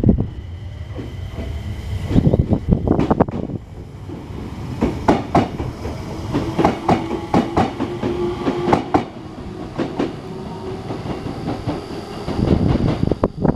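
Enshu Railway 2000-series electric train running along the line, its wheels clattering over rail joints in repeated sharp clicks over a steady rumble, with a steady hum partway through.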